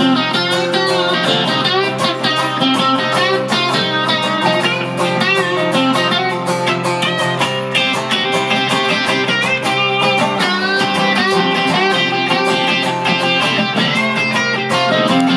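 Instrumental guitar break of a live rock-and-roll song: a lead guitar line moving over steady strummed guitar accompaniment and a held low note, with no singing.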